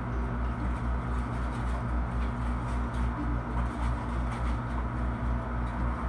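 A machine running steadily: a low hum with a rapid low throb, about five pulses a second.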